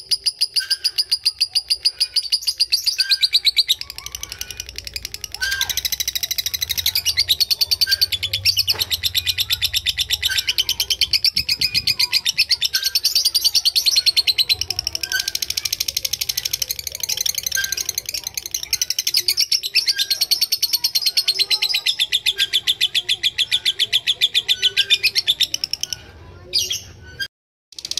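Lovebird singing a long 'ngekek': a rapid, high-pitched chattering trill that runs on without a break for many seconds, then breaks off briefly near the end.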